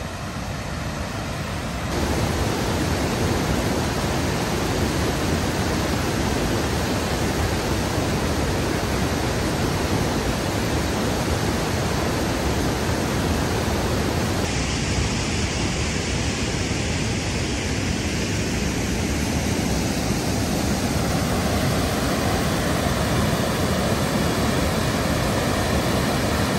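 Steady rushing roar of a waterfall on a creek, its tone shifting slightly about halfway through.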